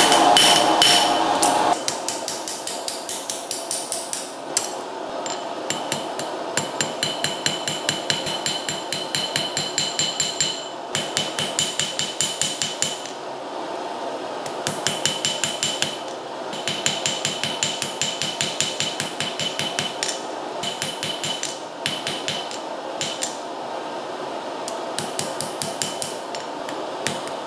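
Hand hammer striking red-hot steel on an anvil while forging a sword's crossguard. Runs of quick blows, about three a second, each with a bright metallic ring, are broken by short pauses.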